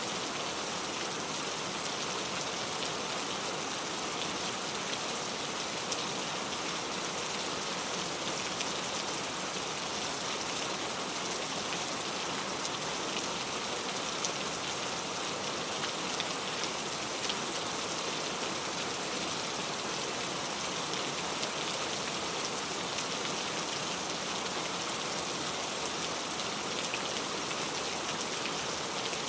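Steady rain falling, an even hiss with the patter of many small drops on a surface.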